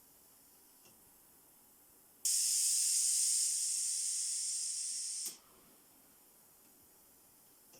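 Compressed air hissing out through a ventilator prototype's pneumatic valve for about three seconds, starting sharply about two seconds in and cutting off suddenly. It is one cycle of a timed, repeating air pulse under pressure testing. A faint click comes about a second in.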